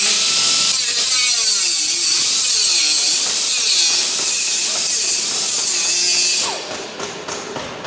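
Power tool running steadily with a high hissing sound, then stopping about six and a half seconds in.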